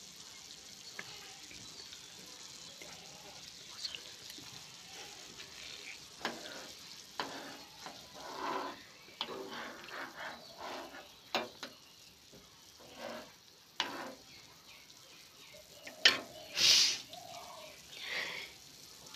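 Rice boiling and bubbling in a small saucepan on a gas stove, a low steady hiss. From about six seconds in, a steel spoon stirs the rice and scrapes the pan in short irregular strokes, with a few sharp clinks against the pan, loudest about three seconds before the end.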